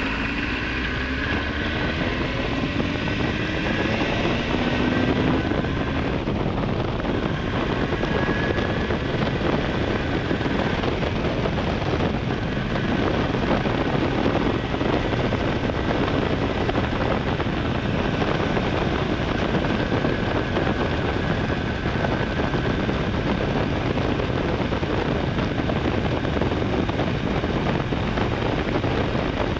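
Honda Hornet 900's inline-four engine rising in pitch under acceleration for the first few seconds, then running steadily at road speed under heavy wind rush.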